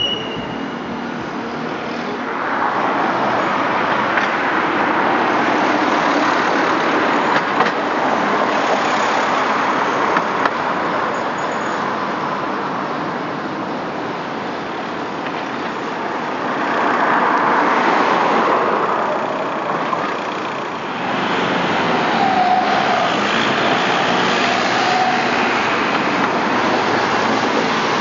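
Passing vehicles on a city street: a steady rush of traffic noise that swells and fades several times, with a faint low tone about two-thirds of the way through.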